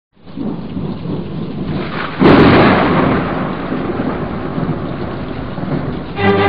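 Thunderstorm: a steady rain-like hiss, with a loud thunder rumble breaking in about two seconds in and slowly dying away. A low bowed-string chord comes in right at the end.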